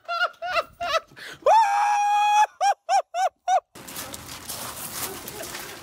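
High-pitched shrieking laughter: quick short shrieks, about four a second, broken by one long held squeal about a second and a half in. It cuts off suddenly a little before four seconds in, giving way to faint outdoor background noise.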